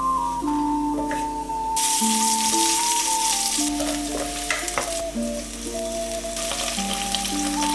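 Food sizzling and frying in a pan, the sizzle swelling sharply about two seconds in and easing back a couple of seconds later, under background music with a simple stepping melody.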